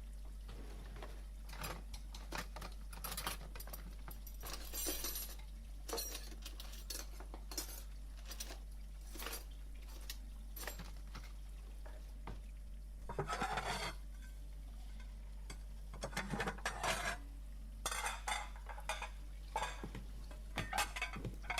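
Crockery and cutlery being handled: scattered clinks and knocks, with a denser bout of clattering about halfway through and more a few seconds later. A steady low electrical hum runs underneath.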